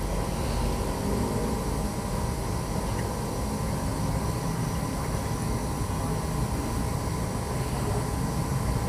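Steady mechanical background hum with a low rumble and a faint constant whine, unchanging throughout.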